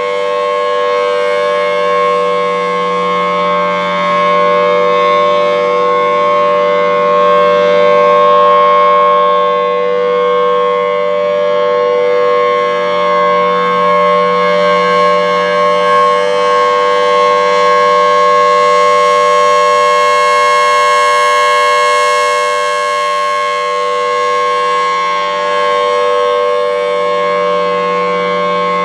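Federal Signal Thunderbolt 1000T warning siren sounding its Full Alert steady tone, a loud held chord with no rise or fall in pitch. It is set on Chopper Level 3, which makes it a little lower pitched. Its loudness swells and fades slowly every several seconds.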